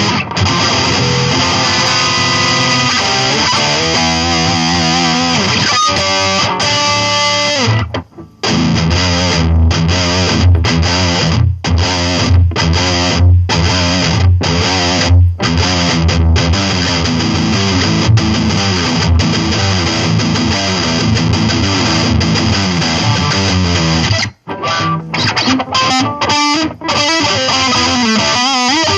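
Electric guitar played through a Line 6 Spider IV 15 practice amp on a distorted setting. Held notes and chords give way, about eight seconds in, to choppy riffing with abrupt stops, which returns near the end.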